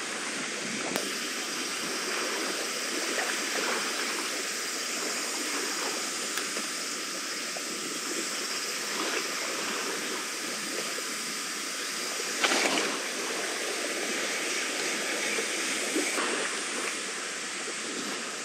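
Seawater washing and trickling against a seawall, a steady rushing, with a brief louder knock about twelve seconds in.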